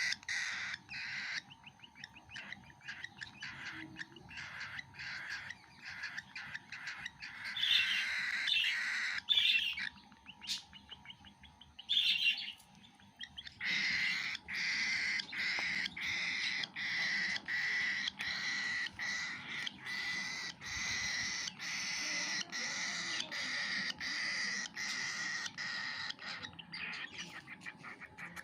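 Cockatiel chick's rasping begging calls while it feeds, a continuous pulsing stream at about two beats a second, with a few louder, higher squeaks in the middle.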